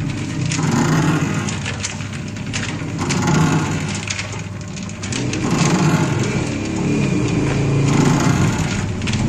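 Soap mixer running with a load of soap noodles, a steady mechanical hum with fine rattling, swelling and fading about every two and a half seconds as the blades churn the mass.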